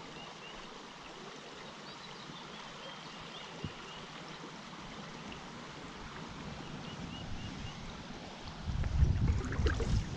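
Steady rushing of a small stream, with high short chirps repeating faintly over it. Near the end a louder low rumbling comes in for about a second and a half.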